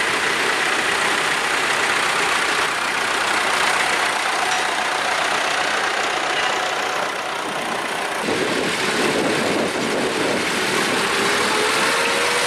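Tractor engines running as a vintage tractor drives past, followed by a large modern Massey Ferguson tractor whose engine note rises a little and levels off near the end.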